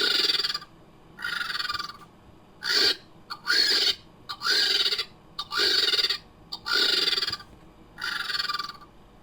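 Made-up creature calls voicing a lappet-faced vulture character: about eight short calls in a row, each under a second long and roughly a second apart.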